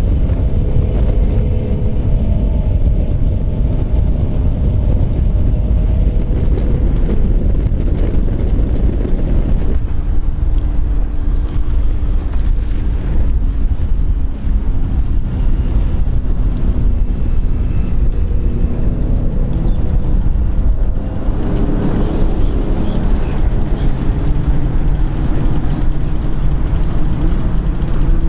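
Volvo Penta 5.7 GI V8 stern-drive engine of a cuddy cabin boat running at high speed, heard on board along with rushing wind and water. About ten seconds in the sound changes abruptly to the same boat heard from the shore as it runs past at speed, its engine note drifting up and down under steady wind noise.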